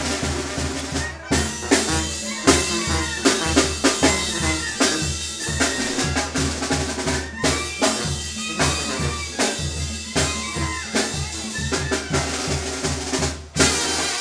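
Live Mexican brass band playing dance music: sousaphone, saxophones and trumpets over a drum kit keeping a steady beat. The sound dips out for a moment near the end, then comes back louder.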